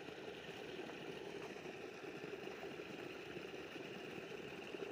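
Faint steady background hum or hiss with no distinct events.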